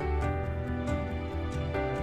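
Instrumental background music: held notes that change every so often over a steady low pulse.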